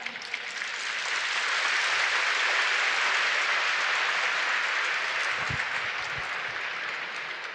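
A large crowd applauding, the clapping swelling over the first couple of seconds and then slowly dying away.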